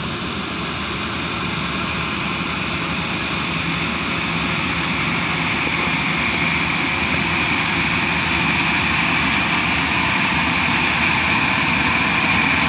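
AW6120 rice combine harvester running as it cuts and threshes standing rice: a steady engine and machinery drone that grows gradually louder as the machine comes closer.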